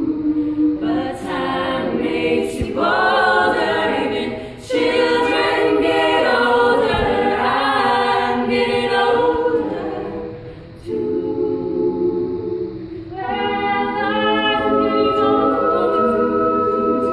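Women's a cappella group singing: a lead voice over sustained backing harmonies, with no instruments. The voices thin out briefly about ten seconds in, then the full group comes back in.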